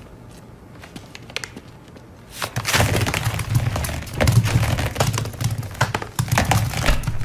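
A bagful of lemons spilling onto a hard floor: a dense, irregular run of many knocks and thuds as the fruit lands and bounces, starting about two and a half seconds in after a few light clicks.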